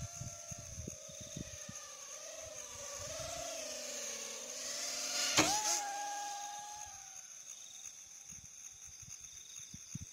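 Yizhan X4 micro quadcopter's motors and propellers whining, the pitch wavering up and down with the throttle. It grows louder as the drone passes close, with one sharp click about five seconds in, then holds a steadier, higher whine for a moment before fading as it climbs away.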